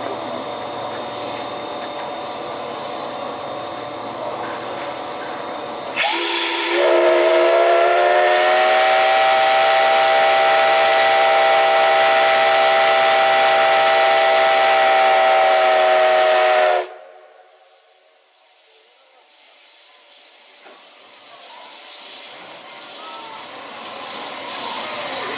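Steam whistle of the D51 200 steam locomotive, sounded as its departure signal: one long blast of about eleven seconds, starting about six seconds in, rising slightly in pitch at first and then holding steady before cutting off abruptly. Before the whistle the standing locomotive gives off a steady hiss of steam.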